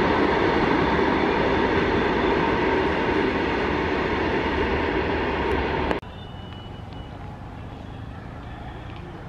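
Loaded open ore wagons (BOXN) of a freight train rolling past close by, a loud, steady rumble of wheels on rail. It stops abruptly about six seconds in, giving way to much quieter background sound.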